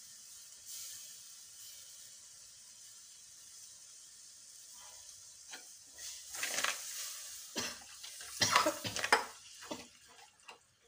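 Spice masala sizzling faintly in a hot clay pot, then a steel spoon stirring and scraping it against the pot's sides in a quick run of strokes for the last few seconds.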